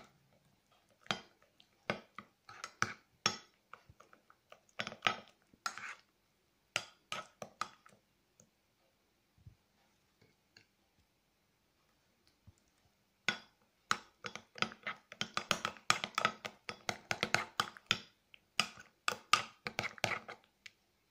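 Metal spoon clinking and scraping against a ceramic mug while stirring thick mayonnaise, in irregular bursts. There is a pause of a few seconds in the middle, and the stirring comes back busier.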